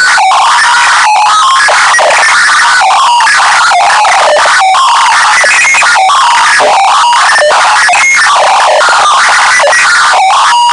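Deliberately overdriven "earrape" audio: a harsh, constant wall of clipped distortion at near full volume, with short buzzing tones jumping in pitch every fraction of a second.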